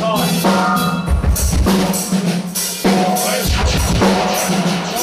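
Live punk band sound check: a drum kit played hard, with snare, cymbal and heavy bass-drum hits, over a held low note from the band that cuts in and out.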